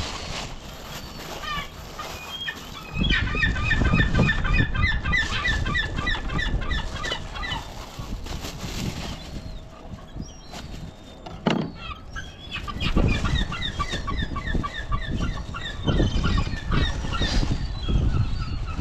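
A bird calling in two long runs of rapid, repeated short notes, one in the first half and one in the second, over rustling plastic and handling noise.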